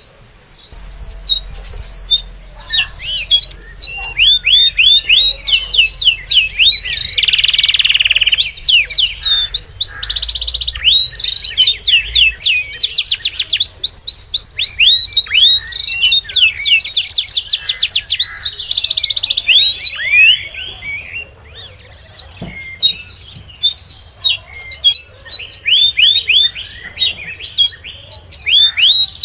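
A flock of small birds chirping continuously, many quick downward-sweeping chirps overlapping one another, with a brief lull about two-thirds of the way through.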